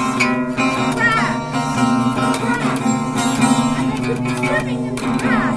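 Music: an acoustic guitar being strummed and plucked.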